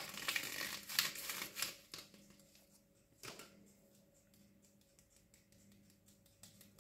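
A plastic scraper rubbing powdered food colouring through a fine mesh sieve: a quick run of scratchy ticks for about two seconds. A single knock follows a little over a second later, then only a few faint ticks.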